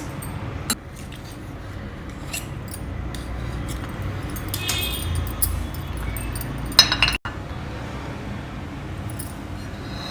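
Small idli cups clinking and tapping against each other and the dishes as they are handled, with a louder ringing clink about seven seconds in, over a faint low background hum.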